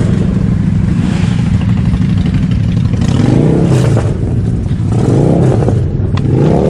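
Several motorcycle engines running together in a steady low rumble, with revs rising and falling a few times as bikes pull off. A car door handle clicks near the end.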